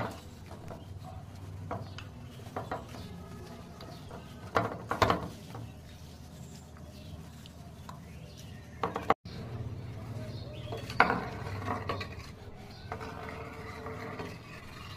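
Fish pieces being mixed by hand in a wet yogurt-and-spice marinade in a steel bowl, with a few sharp knocks against the bowl.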